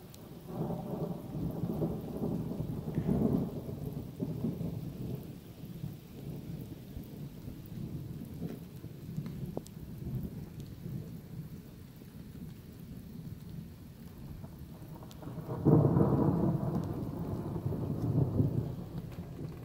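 Thunder from a nearby lightning strike: a rolling rumble that builds in the first few seconds and fades, then a second, louder crack of thunder starting abruptly about 16 seconds in and rumbling off for a few seconds.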